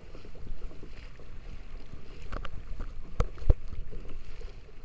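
Kayak moving through choppy sea: water splashing along the hull and wind buffeting the microphone, with three sharp knocks in the second half, the loudest about three and a half seconds in.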